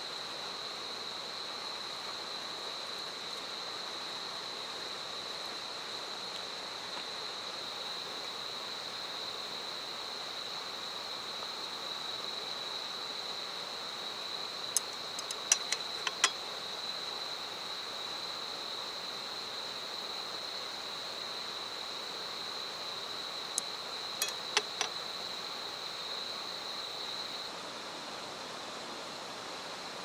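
Night insects chirring in a steady, high-pitched chorus that drops away a few seconds before the end. Two short clusters of light clicks, chopsticks tapping a metal plate, come about halfway through and again some eight seconds later.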